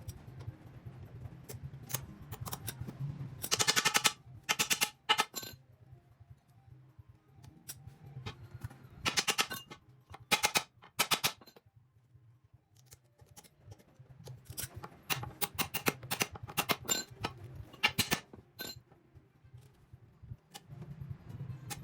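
Repair-work noises on a công nông farm vehicle: scattered metal knocks and clanks, with several short bursts of rapid rattling hammering about half a second each, over a low steady hum.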